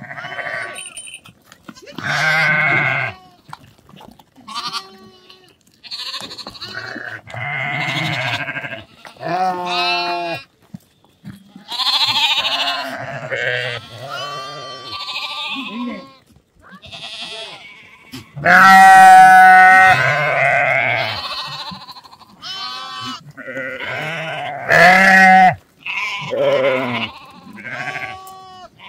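A flock of goats and sheep bleating: many wavering calls, one after another and often overlapping, with the loudest about two-thirds of the way through.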